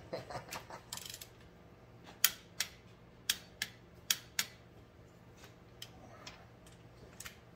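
Socket ratchet wrench clicking as bolts on an Allis-Chalmers tractor engine's cylinder head are tightened: sharp separate clicks, several in pairs, with light metal clatter in the first second.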